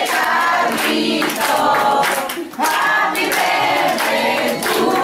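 A room full of people singing a birthday song together in unison, in loose chorus.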